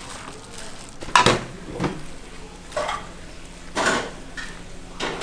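Metal kitchenware and utensils clanking and clattering: several separate knocks, the loudest a little over a second in.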